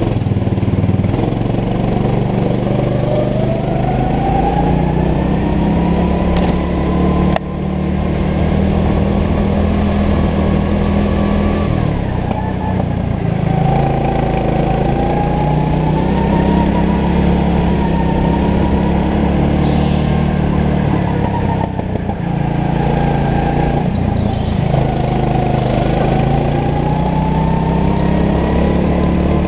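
Rental go-kart engine heard from the driver's seat while lapping. The revs rise and fall repeatedly as it accelerates and slows, with a brief drop about seven seconds in.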